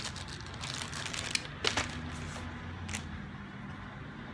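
Handling noise from unpacking: a light rustle with a few sharp clicks or knocks, as the cables and parts come out of the box.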